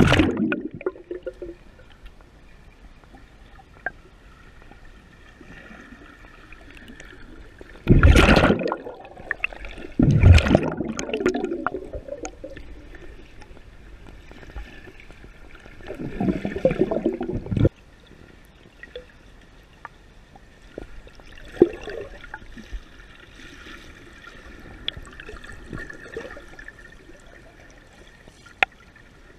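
Swimmers' strokes heard underwater in a pool: muffled rushing and gurgling of water and bubbles over a low steady background. There are loud surges at the very start, about eight and ten seconds in, and again around sixteen to seventeen seconds, with scattered sharp clicks.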